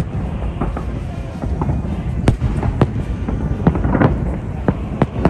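Fireworks bursting overhead: a string of sharp bangs at uneven intervals over a continuous low rumble, the loudest bang a little past two seconds in and a crackling flurry about four seconds in.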